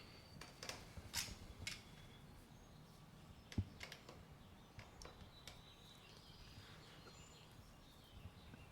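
Scattered metallic clicks and taps of tools working the motorcycle chain's master link as its side plate is pressed on, with one louder knock about three and a half seconds in.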